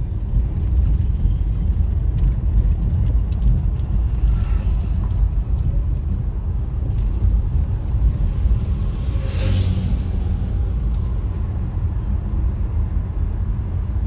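Low, steady rumble of a car driving slowly on a road, engine and tyre noise together. A short hiss swells and fades about nine and a half seconds in.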